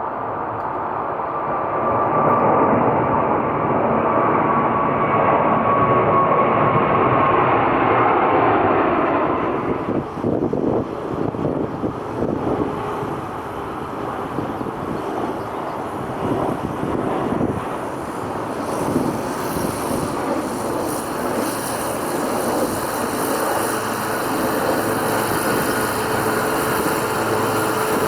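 Jet airliner engines running loud, with a whine that falls slowly in pitch over the first ten seconds as the aircraft goes by. A rougher roar follows. Toward the end the hiss grows brighter and a new steady whine comes in.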